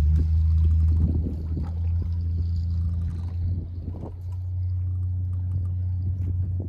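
Boat engine running with a steady low hum that eases and shifts slightly in pitch about four seconds in, with water splashing and gurgling against the hull.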